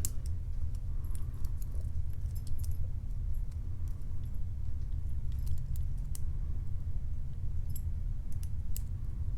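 Scattered faint metallic clicks and scratches of a lock pick working the pin stack of a Matlock 2508 padlock, over a steady low hum.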